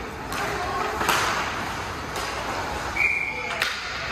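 Referee's whistle, one short steady blast about three seconds in, stopping play in an ice hockey game. Scattered sharp clacks of sticks and puck and the general hubbub of the rink run through it.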